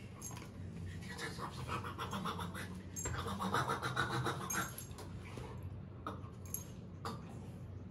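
Rottweiler panting hard during rough play, its metal chain collar jingling now and then. The breathing is loudest in the middle.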